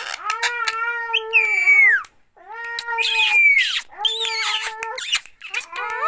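Ring-necked parakeet calling: a run of drawn-out, nasal calls about a second long each, some ending in a falling squawk, with sharp clicks between them and a short break about two seconds in.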